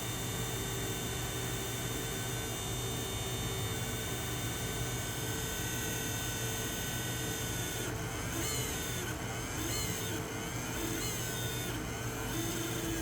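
Creality Ender-3 V3 KE 3D printer's 2510 fan running with a steady hum and hiss. From about eight seconds in, a wavering tone rises and falls several times. The uploader takes this abnormal noise for a worn fan bearing.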